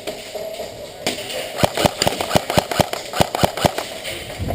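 Airsoft gun firing a quick string of about ten shots, roughly five a second, each a sharp snap.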